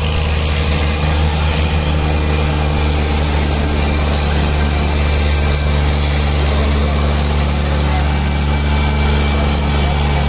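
Fiat 480 tractor's diesel engine running steadily under heavy load as it drags a disc harrow through the soil.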